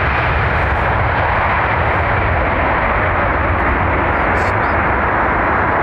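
Boeing 777-300ER's two GE90 jet engines running loud and steady as the airliner rolls out along the runway just after touchdown, an even rushing noise over a low rumble.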